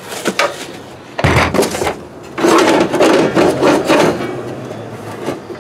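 Handling noise as a small curb ramp is pulled out from among gear in a moving truck: a knock about a second in, then about two seconds of scraping and rustling.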